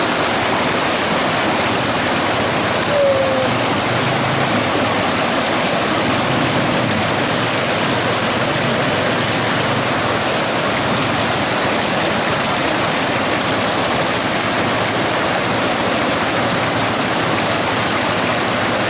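River rapids rushing steadily over rocks, a constant whitewater roar. About three seconds in, a short falling tone sounds once over it.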